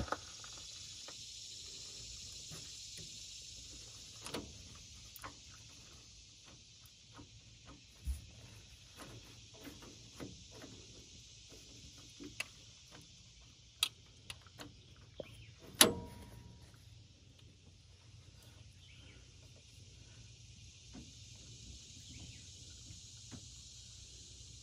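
Scattered light clicks and metal clinks of hands and tools working over the open valve gear and injectors of a stopped Detroit Diesel 6-71, with one sharper clink that rings briefly about two-thirds of the way through, over a steady high hiss.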